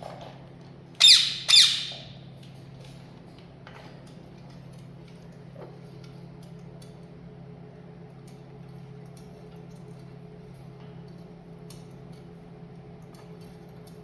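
Parrot giving two loud, harsh squawks in quick succession about a second in, then faint scattered clicks over a low steady hum.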